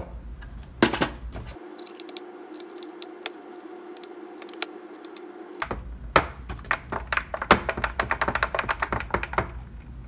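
Rapid, irregular plastic clicks and taps from hands working the front panel and knobs of a Rigol DS1054 oscilloscope, densest in the last few seconds, with a single knock about a second in.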